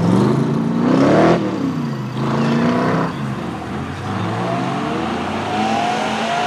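AC Cobra 427's V8 revving hard as it pulls away, the engine note rising twice with a gear change between. A first-generation Acura NSX's V6 follows, pulling away with a slower, steadily rising note.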